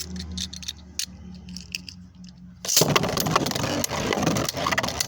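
Beyblade spinning tops in a plastic Hypersphere stadium: a low hum with a few clicks, then about two and a half seconds in a sudden loud, dense rattle of rapid clicks and scraping as the tops spin and clash.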